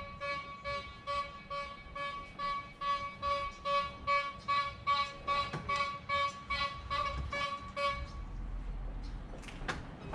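An electronic chime beeping steadily at one pitch, about two and a half times a second, stopping about eight seconds in; a low hum and a single click follow.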